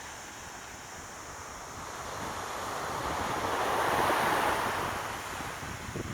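Sea waves washing onto the shore, one wave swelling to its loudest about four seconds in and then fading.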